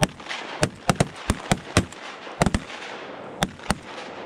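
Shotgun volley from several duck hunters firing together: about a dozen sharp shots in quick, uneven succession, bunched in the first three seconds with two more near the end.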